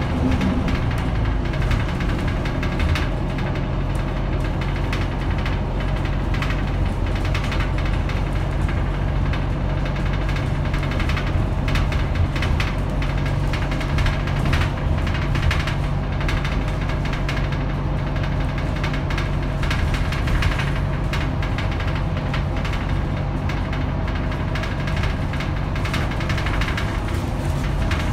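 Interior sound of a Scania K310UB city bus: its rear-mounted 9-litre five-cylinder diesel runs with a steady low drone. Many light rattles and clicks from the cabin fittings run over it.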